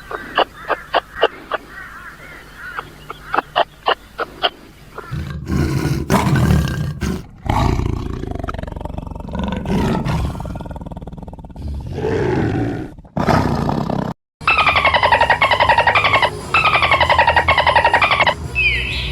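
Several animal calls cut one after another: a quick series of short sharp calls, then low rough roars for several seconds, then a run of evenly repeated high calls that fall in pitch.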